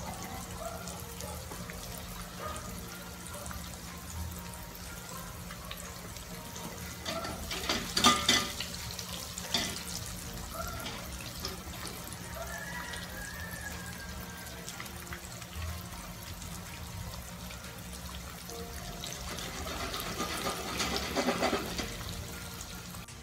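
Tofu slices deep-frying in hot oil in a skillet: a steady crackling sizzle, with a brief clatter about eight seconds in.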